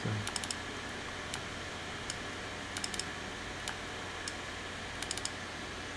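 Light, sharp clicks from operating a computer, mostly in quick clusters of two to four every second or two, over a steady low hum.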